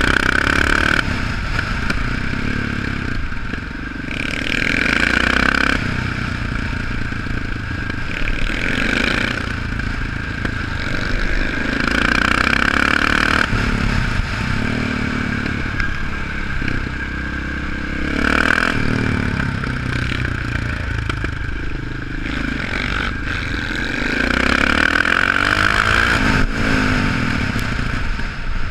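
Big single-cylinder four-stroke supermoto engine heard from on board, repeatedly accelerating and easing off as the bike is ridden around a track.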